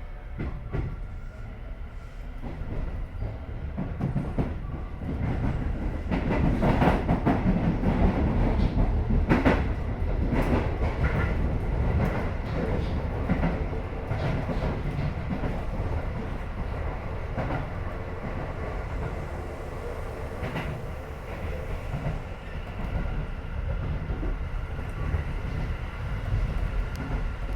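Keio 7000 series electric train running. A faint whine rises in pitch over the first few seconds, then wheel-on-rail rumble with clickety-clack from rail joints grows loudest about seven to ten seconds in and settles to a steady run.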